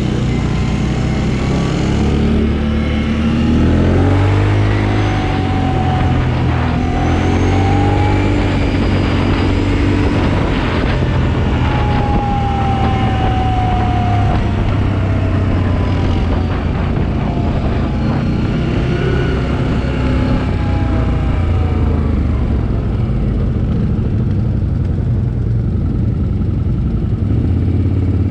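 ATV (quad bike) engine running under way, its pitch rising and falling several times as the throttle opens and closes.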